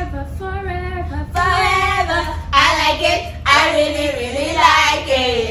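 Unaccompanied group singing by young women and a man: one woman sings alone at first, and about a second in the others join and the singing gets louder.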